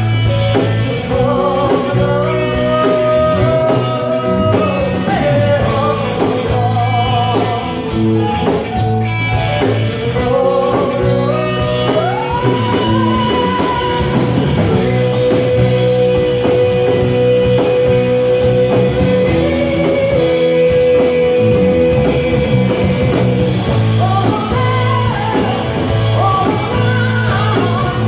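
Rock music with guitar: a melody line slides up between notes and then holds one long note through the middle of the passage, over steady chords.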